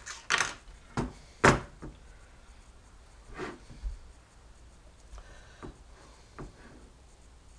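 Hands handling metal kit parts and tools on a workbench: a few sharp knocks and clicks, the loudest about a second and a half in, then a few lighter ticks.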